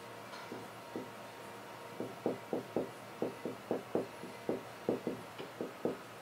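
Marker pen writing on a whiteboard: a few faint strokes, then a quick run of about a dozen short, sharp strokes from about two seconds in until near the end.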